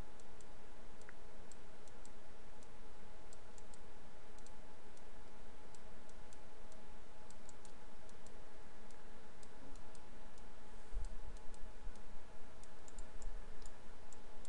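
Scattered, irregular computer mouse clicks while vertices are selected and dragged, over a steady background hum. A few soft low thumps come about 11 to 13 seconds in.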